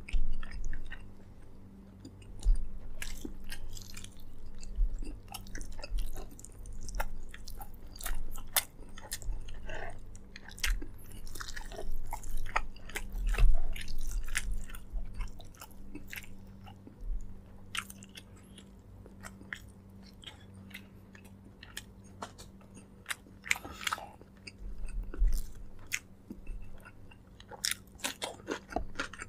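Close-miked chewing of braised pork leg: an irregular run of sharp mouth clicks with a few louder bites. A faint steady low hum sits underneath.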